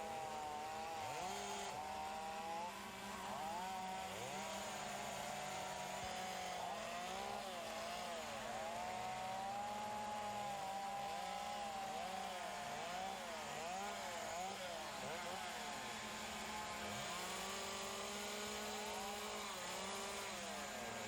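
Chainsaws cutting wood during speed carving, their engines revving up and down over and over, with several saws overlapping.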